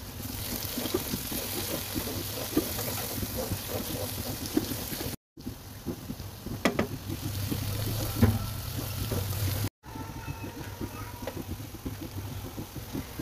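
Onion-tomato masala frying in a pan, a soft sizzle with a wooden spatula stirring and knocking against the pan, over a low steady hum. The sound cuts off abruptly twice for a moment.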